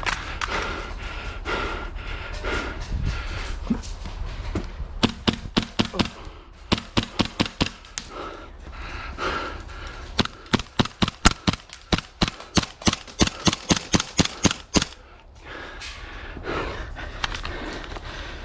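Airsoft guns firing in a skirmish: scattered sharp shots, then two strings of rapid cracks, a short one about five seconds in and a longer one at roughly five shots a second from about ten seconds in.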